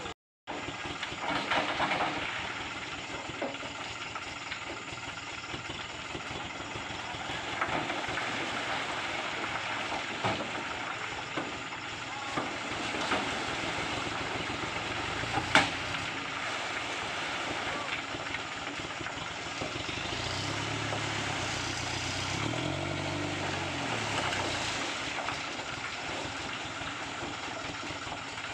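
Komatsu PC75UU mini excavator running and working, a steady diesel engine and hydraulic noise with a single sharp knock about halfway through.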